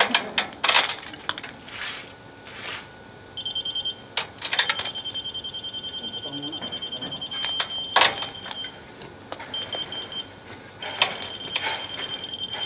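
A site machine's electronic warning beeper sounding in rapid high-pitched pulses that stop and restart several times. It is mixed with scraping and knocking from rakes and tools working wet concrete, loudest near the start, about four and a half seconds in, and around eight seconds in.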